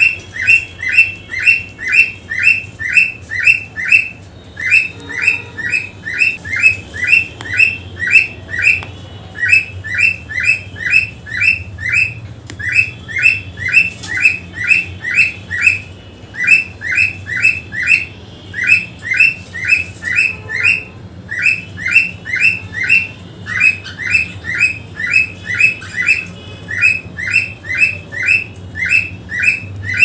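A pet parrot calling over and over: short, shrill chirps in quick runs of five to seven, about five a second, with a brief break between runs. It is a lot of noise, from a bird in a playful mood.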